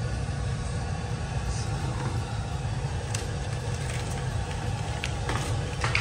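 Steady low rumble of a running air handler's blower, with a few light clicks and a louder metallic clatter near the end as the hinged metal return-air grille is swung open.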